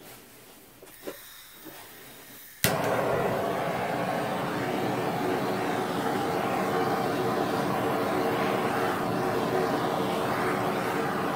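A handheld torch clicks alight about two and a half seconds in and then burns with a steady, loud hiss as its flame is played over wet acrylic pour paint.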